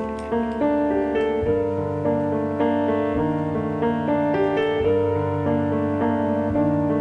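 Background piano music: a gentle melody of held notes over a bass line that changes about every second and a half.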